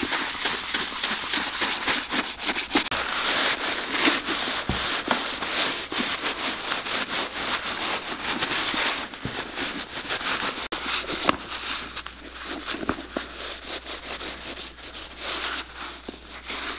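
A bristle brush scrubbing foamy cleaner into the leather upper of a boot, a dense scratchy rubbing of many quick strokes, then a cloth wiping the leather down, softer in the later part.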